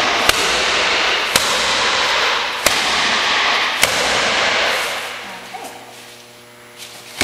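An unbreakable umbrella striking a hanging heavy punching bag: four sharp smacks about a second and a quarter apart, over a steady hiss that fades out about five seconds in.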